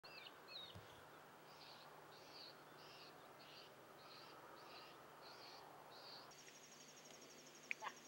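Faint outdoor ambience of birds and insects. A few curving bird calls come at the start, then a high chirp repeats about every two-thirds of a second. From about six seconds in, a steady high insect trill takes over, with a sharp click just before the end.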